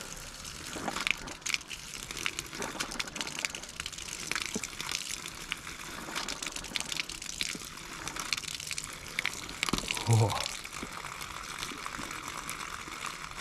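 Spring water spraying and spitting from an outdoor faucet, a steady hiss broken by irregular sharp spits and splashes: air is in the newly laid line.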